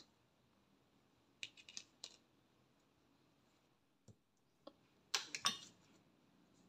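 Faint clicks and taps from a small plastic rocker switch and its wires being handled: a few soft clicks after about a second and a half, two faint ticks around four seconds in, and a louder cluster of clicks near the end.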